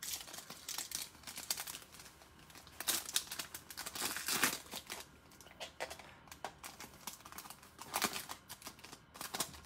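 Foil wrapper of a 2020 Panini Select basketball card pack being torn open and crinkled by hand, in irregular crackling bursts.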